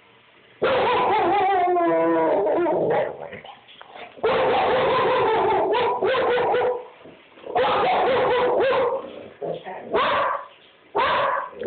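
English Springer Spaniel making long, wavering whining, howl-like calls, several in a row, with shorter yips near the end: she is alarmed at something she sees outside.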